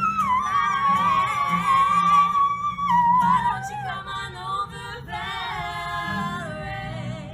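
Music with a high-pitched singing voice: a long held note that slides down just after the start, then wavering runs of notes over a soft low accompaniment.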